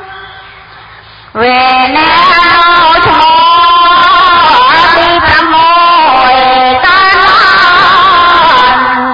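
A voice singing Buddhist sutta verses as a melodic chant, coming in about one and a half seconds in with long held, wavering notes after a brief lull, and fading near the end.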